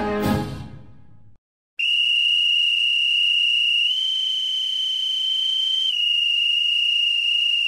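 Brass music ends and fades out within the first second or so. After a short silence, a single steady high-pitched pure tone holds, stepping slightly up in pitch about four seconds in and back down about two seconds later.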